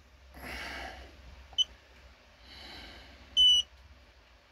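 Handheld digital car-battery tester beeping as its button is pressed to start the test: a faint short chirp about one and a half seconds in, then a clear short single beep about three and a half seconds in.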